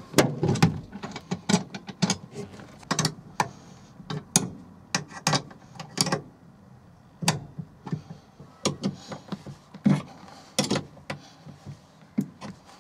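Ratcheting ring spanner clicking in irregular bursts, with metal clinks, as the bolts holding the seat runners to the car floor are tightened.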